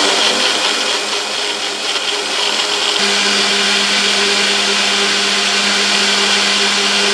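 Personal cup blender running steadily at full speed, blending strawberries and yogurt into lassi. A low steady hum comes in about three seconds in.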